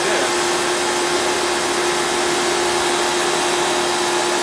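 Pressure washer running: a steady motor-and-pump hum with one strong even tone over a broad hiss.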